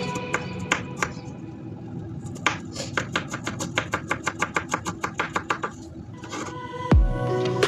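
Knife chopping on a cutting board: a few single cuts, then a fast even run of about six strokes a second for some three seconds. Music with deep falling bass notes comes in near the end.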